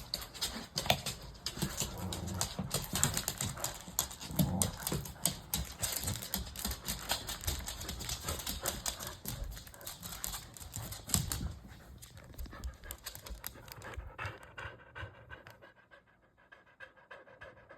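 Dogs panting hard and fast, the rapid breaths dense and loud for most of the stretch before thinning out and fading near the end: the panting of tired dogs.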